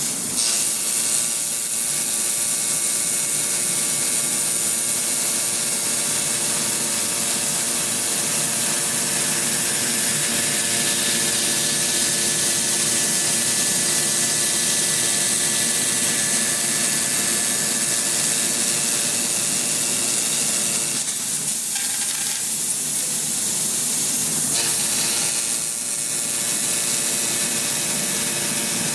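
A 12 kW fiber laser cutting machine cutting 16 mm stainless steel: a loud, steady hiss with crackle from the cut, over a constant hum of several steady tones. The sound changes briefly about three-quarters of the way through and again a few seconds later.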